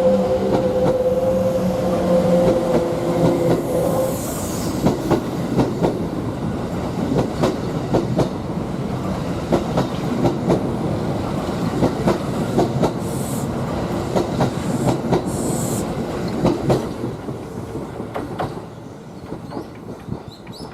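Kintetsu limited-express electric train running past: a steady motor whine at first, then wheels clacking over rail joints, often in quick pairs, dying away near the end as the train moves off.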